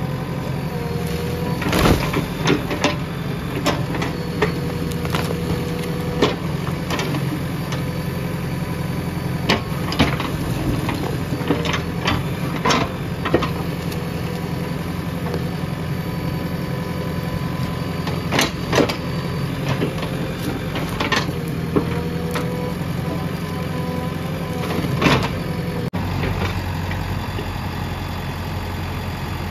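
JCB 3DX Plus backhoe loader's diesel engine running steadily under load, with a hydraulic whine rising now and then as the backhoe arm works. Bricks and rubble knock and clatter about a dozen times as the bucket pushes down and rakes through an old brick wall.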